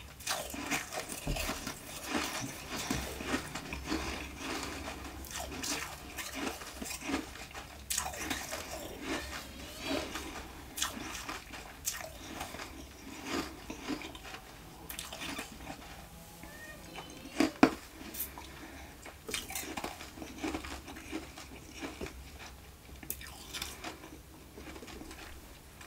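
Close-miked chewing of crunchy nugget ice: a continuous run of crisp crunches and cracks, with the loudest crunch about two-thirds of the way in, thinning out and getting quieter near the end.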